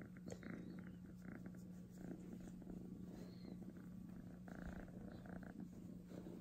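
Young tabby kitten purring steadily while being stroked.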